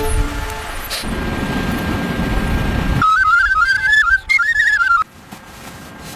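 A short high piping melody, a single line stepping up and down for about two seconds, coming after a stretch of low rumbling noise.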